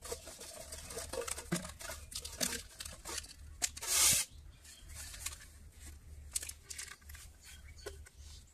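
Empty plastic drink bottles crinkling and clicking as they are handled and laid down on dirt, with a louder rustling crackle about four seconds in.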